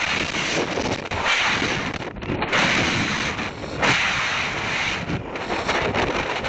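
Wind buffeting the microphone of a high-power rocket's onboard camera: a rough rushing noise that swells and drops in irregular gusts.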